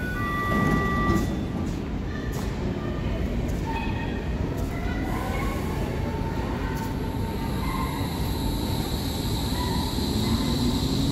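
Berlin S-Bahn class 481 electric train pulling out of the station. Short steady electronic warning tones sound at the start. The traction motors then whine, rising in pitch as the train gathers speed, and the motor and wheel noise grows louder near the end as the cars pass close by.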